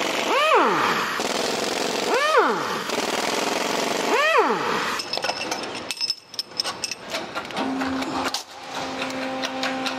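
Air impact wrench breaking loose the cylinder head bolts of a six-cylinder BMW 30d diesel engine in three short bursts, its whine rising and falling each time over a steady hiss of air. In the second half it gives way to metallic clicks and clinks as the loosened head is handled, with a steady low tone joining near the end.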